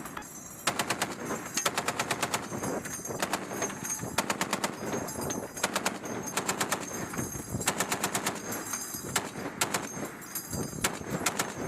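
Machine gun firing in repeated short bursts of automatic fire, about eight bursts with brief pauses between them.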